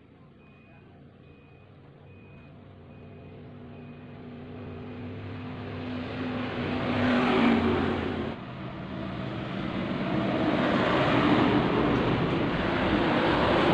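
A motor vehicle's engine running and growing steadily louder for about seven seconds, dropping off sharply about eight seconds in, then building up again. A faint beep repeats evenly through the first few seconds.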